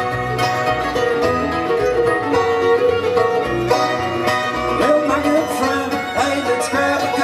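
Live bluegrass band playing an instrumental break: banjo and fiddle over guitar and a steady bass beat.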